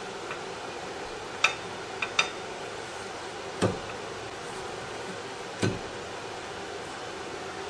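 Metal tool clicking and knocking against the rear differential carrier and ring gear: a sharp clink about one and a half seconds in, two lighter ones just after two seconds, then two duller knocks near four and near six seconds.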